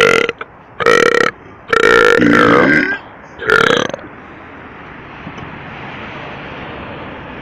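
A person burping loudly four times in quick succession, the third burp the longest, drawn out for about a second.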